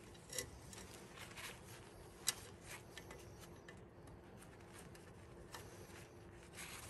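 Faint scattered metallic ticks and clicks, one sharper than the rest about two seconds in, as a brake line flare nut is turned by hand into a new drum-brake wheel cylinder, over a low steady hum.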